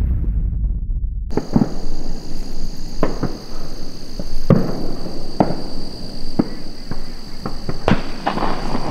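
Shotgun shots going off from duck hunters around the marsh at the opening of shooting light: about ten sharp reports at uneven gaps, over a steady high drone of insects. A low rumble fills the first second.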